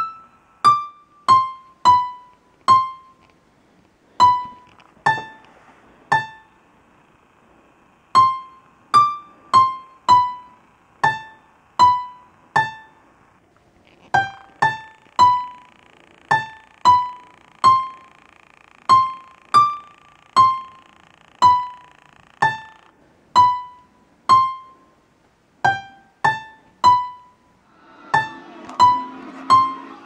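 Background music: a slow melody of single piano notes, each struck and left to ring, about one or two a second at changing pitches. Near the end a rustling noise joins in.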